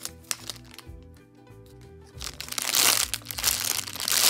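Clear plastic packaging bag crinkling loudly as hands handle a foam squishy toy inside it, starting about two seconds in, over quiet background music.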